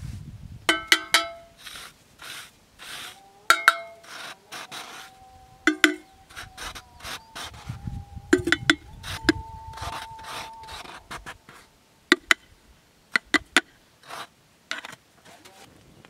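Snow being scooped by hand and packed into an enamel kettle: gritty scraping and crunching strokes of snow, with sharp clinks that ring off the metal of the kettle every second or two.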